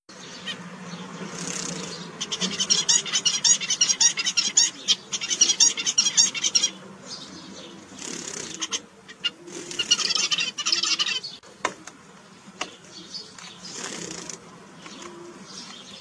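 Caged zebra finches singing and calling. There are two bursts of rapid, high-pitched chattering song, one a few seconds in and another about ten seconds in, with single short calls between them.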